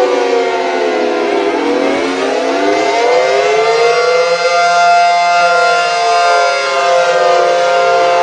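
Synthesized 1950s Federal civil defense sirens with 9/12-port rotors, sounding a wailing chord of several tones. The pitch falls to a low point about two seconds in, rises to a held high note for a few seconds, then falls again near the end.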